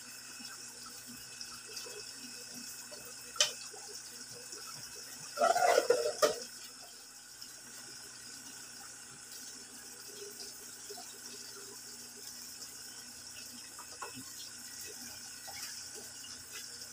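Steady trickle of water from a goldfish aquarium's filter. A sharp click comes about three and a half seconds in, and a short, loud burst of handling noise about two seconds later.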